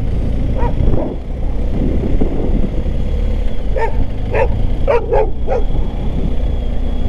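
A dog barks in short sharp yaps, once or twice about a second in and then about five times in quick succession from four to six seconds in. Under the barks is the steady low running of a motorcycle at town speed, with wind noise.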